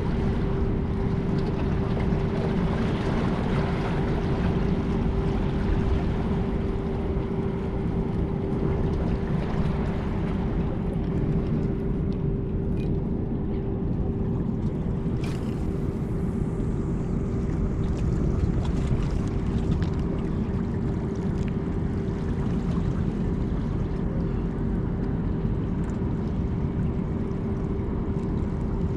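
Boat or ship engine running steadily, a low rumble with a constant hum through it. A few clicks and a sharp knock come about halfway through.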